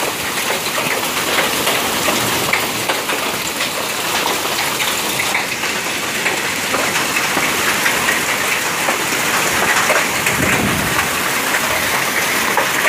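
Heavy hailstorm: hailstones and rain pelting the ground and walls in a dense, steady patter of many small sharp ticks.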